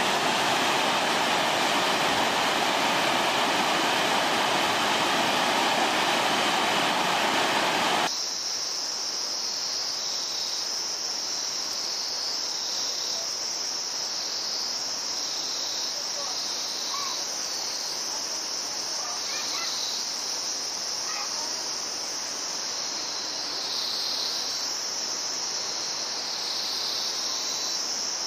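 Rushing whitewater of a boulder-strewn mountain river, cutting off abruptly about eight seconds in. A steady high-pitched insect chorus takes over, gently swelling and easing.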